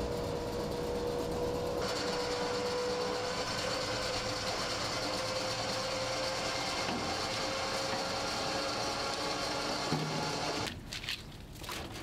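Boat machinery running steadily with a droning hum. Near the end it cuts off abruptly, giving way to quieter scattered knocks.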